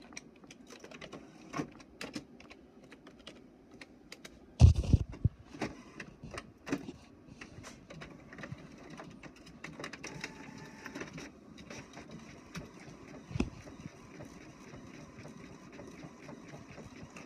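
Inkjet all-in-one printer printing a page: a running mechanism with a steady stream of clicks as the print head shuttles and the paper feeds. A loud knock comes about five seconds in and another near thirteen seconds.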